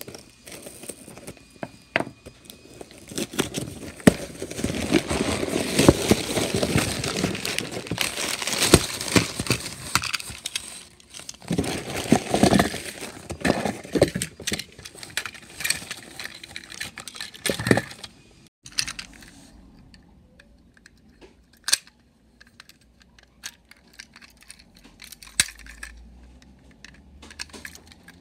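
A cardboard box and its plastic packaging being opened by hand, with dense rustling, crinkling and tearing through the first two-thirds. After that, only scattered light clicks and taps as the plastic toy engine and tender are handled.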